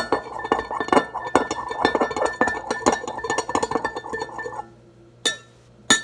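A metal fork whisking eggs in a glass measuring cup, giving rapid clinks of metal against glass. The whisking stops about four and a half seconds in, followed by two single clinks.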